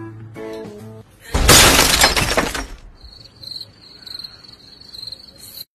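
Breaking-glass sound effect: a loud shattering crash of about a second and a half. It is followed by a cricket-chirping sound effect, a high, quick, steady chirping.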